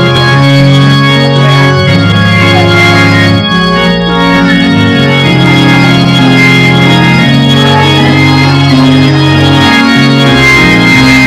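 Organ music: slow, sustained chords, each held for a second or more before moving to the next.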